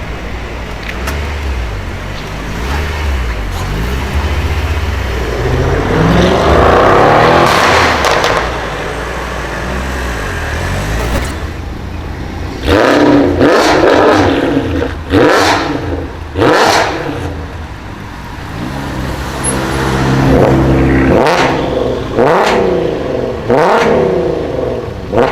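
High-performance car engine revving hard, rising and falling. Sharp, loud exhaust pops and bangs come in clusters between the revs, several around the middle and more near the end.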